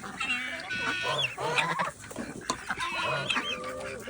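Chickens clucking and calling over one another, several birds at once.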